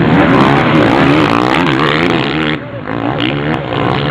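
Several motocross bikes revving hard up a dirt hill, their engine notes rising and falling as they accelerate and shift, with a brief dip about two and a half seconds in.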